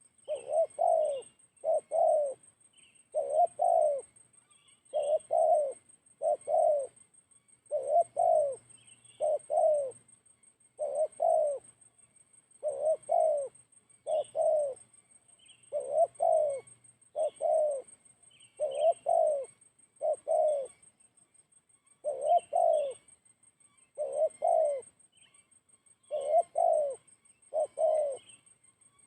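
Spotted dove cooing, a repeated two-note coo about every one and a half seconds, with other small birds chirping faintly and a steady faint high-pitched hum.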